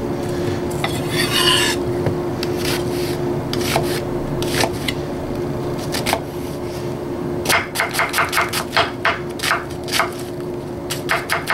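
Chef's knife dicing an onion on a wooden cutting board: scattered single cuts, a brief scrape near the start, then a quick run of chops, about five a second, in the second half.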